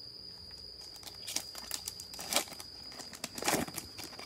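Plastic wrapper of a football trading-card pack crinkling and tearing open in three main rustling bursts. A cricket's steady high trill carries on behind it.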